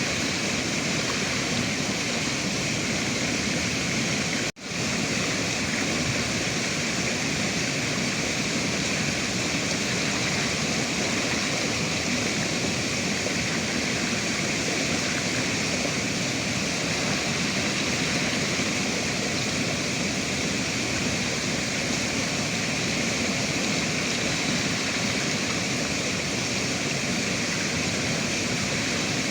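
Steady rushing of river water, a continuous even wash of noise. It cuts out for a split second once, about four and a half seconds in, then resumes unchanged.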